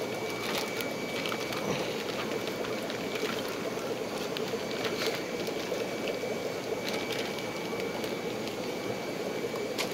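Steady bubbling and running water of aquarium tanks' filters and air pumps, with a faint steady high whine and a few light clicks.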